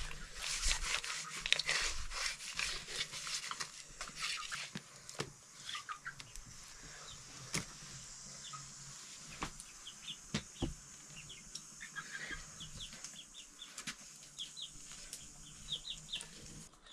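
Hands rubbing wet mud paste onto an aluminium pressure cooker, a rough scraping for the first few seconds. Then chickens clucking and chirping, with a few scattered sharp knocks.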